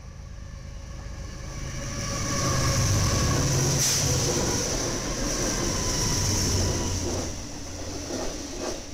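BNSF freight train passing at speed. The diesel locomotives rumble by, growing louder about two seconds in, and are followed by autorack cars rattling, with wheel clicks over the rail joints near the end.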